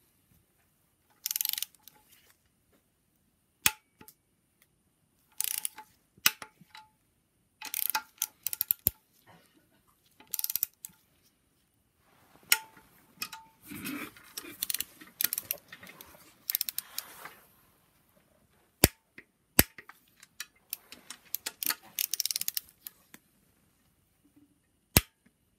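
Torque wrench's ratchet head tightening the cylinder head bolts of a BMW N54 engine: short bursts of rapid ratchet clicking as the handle swings back, between pauses, with a few sharp single clicks now and then.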